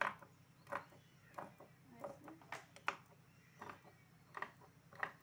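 Scissors cutting through blouse cloth: a run of about eight short, crisp snips at uneven intervals of roughly half a second, over a faint steady low hum.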